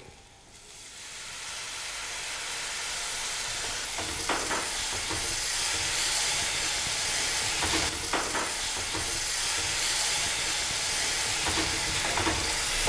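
Tamarind water sizzling and hissing in a hot pan of fried onions, green chillies and spices as it is stirred with a wooden spatula. The sizzle builds over the first couple of seconds and then holds steady, with a few soft knocks of the spatula.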